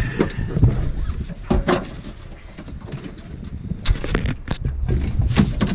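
Low wind rumble on the microphone with scattered sharp knocks and rubbing from the camera being handled, the clearest knocks a little over a second and a half in, around four seconds, and just before the end.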